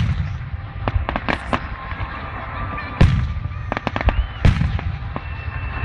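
Fireworks display shells bursting: a series of booms and sharp cracks. The loudest come right at the start and about three seconds in, with quick clusters of crackling in between.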